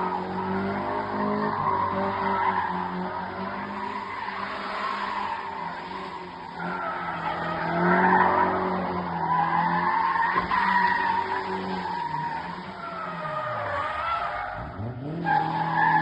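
Car tyres squealing as a car drifts, over an engine revving up and down; near the end the revs drop sharply and climb again.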